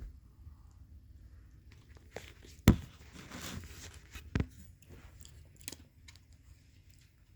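A sharp knock about three seconds in, a short rustle right after it, and a second, lighter knock about a second and a half later, among a few faint clicks of things being handled.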